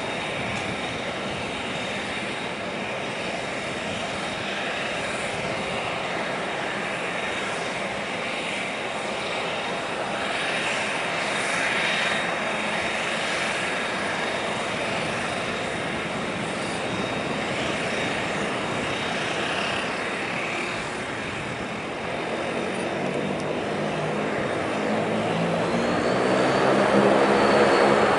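Bombardier Dash 8 Q400's turboprop engines running with the propellers turning: a steady hiss and whine with a thin high tone. In the last few seconds a deeper propeller drone builds and grows clearly louder.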